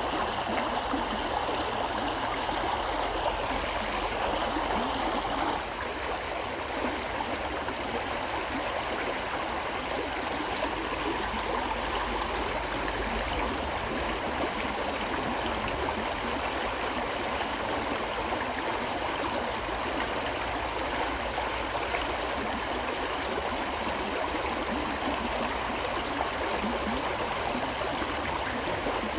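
River water flowing in a steady, even rush. The sound eases slightly about five and a half seconds in.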